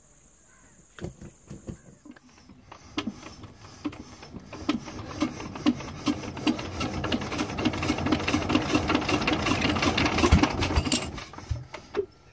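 Single-cylinder Peter-type diesel engine being hand-cranked: a rhythmic clatter that builds faster and louder for several seconds, then stops abruptly about eleven seconds in, without the engine staying running.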